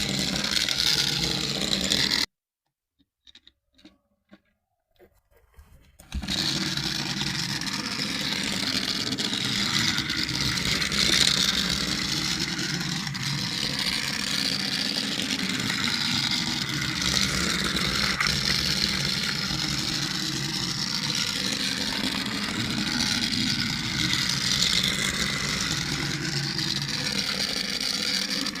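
Battery-powered toy vehicle running, with a steady mechanical whir that wavers slowly up and down in pitch. It cuts out about two seconds in and comes back about four seconds later.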